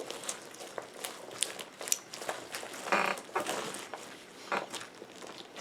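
Slime being stretched and squished by hand, making irregular small clicks and pops.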